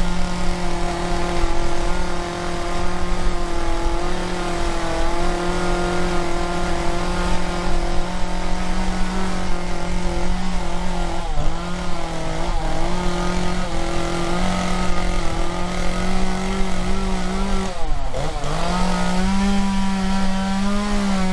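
Gasoline chainsaw running at high speed as its bar cuts into a large wooden log, a steady high engine note. Near the end the pitch sags sharply under the cut, then climbs back.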